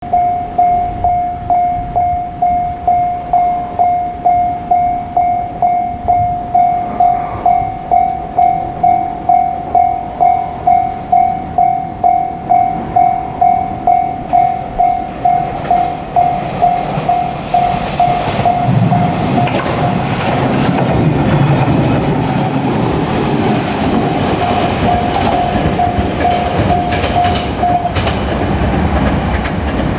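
Japanese level-crossing warning bell ringing steadily about twice a second. About halfway through, a JR Kyushu 817 series electric train approaches and passes over the crossing with a rising rumble and wheel clatter that all but drowns the bell. The bell stops shortly before the end.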